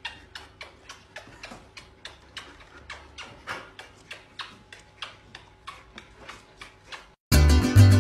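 Regular ticking like a clock, about four ticks a second, with a faint steady hum under it. The ticking stops abruptly about seven seconds in, and plucked-guitar music starts.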